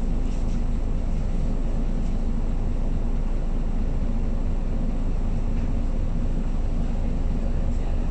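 Steady drone of a MAN A22 single-deck bus's diesel engine heard from inside the cabin near the front door, unchanging throughout.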